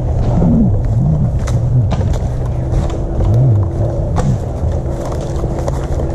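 Low rumble of movement and wind on the microphone, with a few short sharp clicks. A faint steady hum starts about two and a half seconds in.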